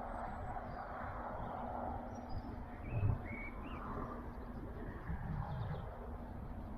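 A few short, faint bird chirps over a steady outdoor background of hiss and low rumble, with a brief low bump about three seconds in.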